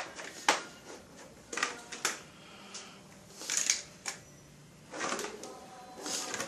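Irregular clicks and short knocks of a desktop computer's case parts being handled as the system unit is taken apart.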